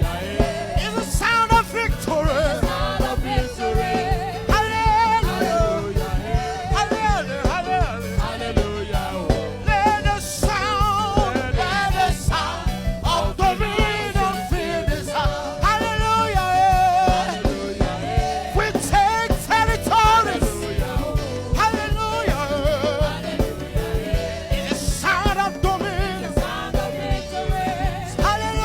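Praise music: voices singing over a band with a steady beat.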